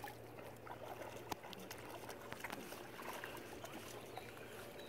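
Shallow water splashing and sloshing as two small dogs wade and paddle through it, a run of small irregular splashes.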